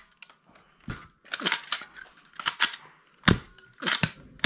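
Sharp plastic clicks and snaps from a toy foam-dart blaster being handled, in a run of short clusters, the loudest about three seconds in.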